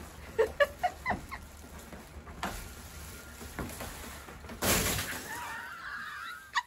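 Rainwater pooled in a plastic sheet over a hole in a van roof sloshing and spilling off as the sheet is pushed up from below, with a short loud rush of water about four and a half seconds in.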